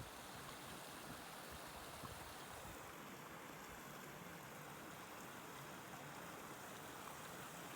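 A river running, heard as a faint, steady rush of water.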